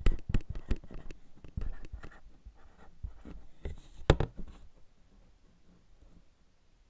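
Handwriting on paper: quick scratching strokes and taps of a pen on a sheet, with one sharper tap about four seconds in, dying away after about four and a half seconds.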